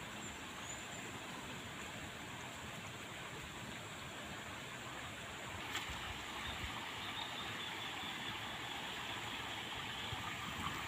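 Steady outdoor background hiss with no clear single source, broken by one sharp click about six seconds in; a faint high steady tone joins after the click.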